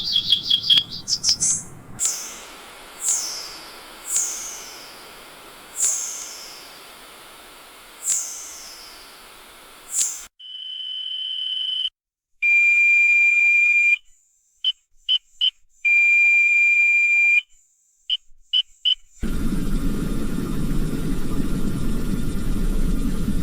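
Metro station ambience made of several sounds in a row. First come chirps, then a series of falling chirps, one every second or two. Next come electronic beeps: a steady tone, two long beeps and clusters of short beeps. About nineteen seconds in, a steady low rumble sets in.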